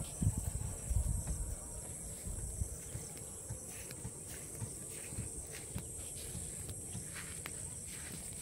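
Outdoor ambience: a steady, high-pitched insect drone, like crickets, over an uneven low rumble that is strongest in the first second.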